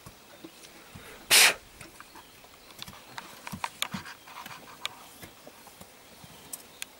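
One loud, short rasp about a second and a half in, then scattered faint scrapes and clicks of hand tools working in soil.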